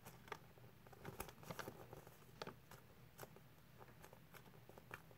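Near silence with faint, scattered small clicks and rustles: hands handling foam squishy toys and their clear plastic bag.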